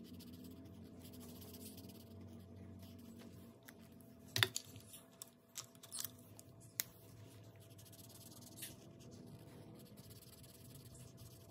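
Sharpie marker coloring on a paper tracker, faint scratching strokes, with a few sharp clicks around the middle from handling the markers.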